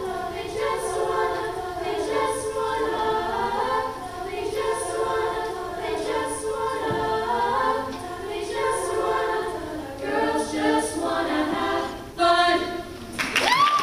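High school choir singing a cappella, with many voices holding chords that shift every second or so. Just before the end the song closes and a single sharp rising call cuts in.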